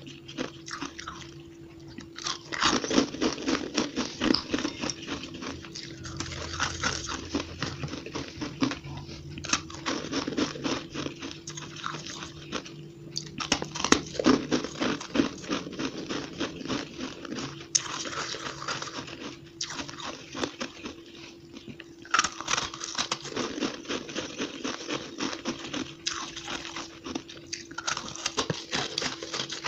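Close-miked biting and chewing of compacted shaved ice: runs of rapid, sharp crunches broken by short pauses, played back at double speed. A faint steady hum sits underneath.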